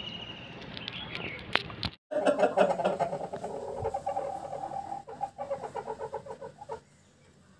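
Aseel rooster giving a long, rapidly pulsing call of nearly five seconds, which stops near the end. Before it, a thin high whistling note is heard for about the first second.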